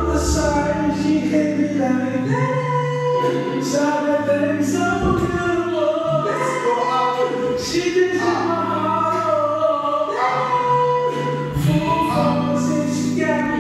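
Recorded music with singing: slow, long held notes over a bass line whose chords change every second or two.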